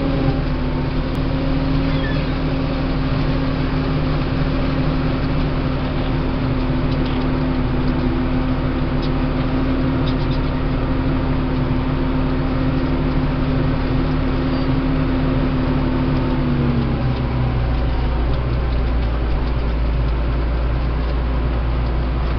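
Deutz DX 92 tractor's air-cooled diesel engine running steadily under load while it pulls a power-harrow seed drill, sowing wheat. About three-quarters of the way through, a steady whine in the engine note fades and a deeper rumble takes over as the tractor draws near.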